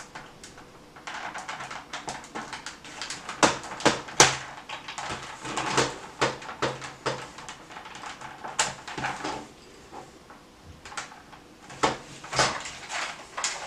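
Flat-tip screwdriver scraping and clicking against the plastic of a Nerf Alphahawk blaster, prying at the slots to free its priming handle: an irregular run of sharp plastic clicks and scrapes, the loudest about three and a half and four seconds in.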